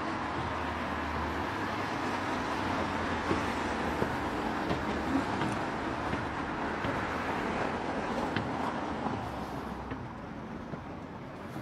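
Steady rushing noise of passing vehicle traffic that fades in the last couple of seconds.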